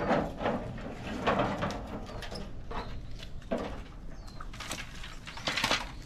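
Bamboo branches and leaves rustling in irregular bursts as they are handled, with small snaps and clicks in between.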